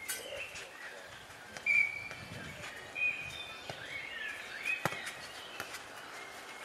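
Birds singing in short whistled phrases, the loudest in the first half, with a few sharp impacts of a futnet ball being kicked and bouncing on the court in the second half.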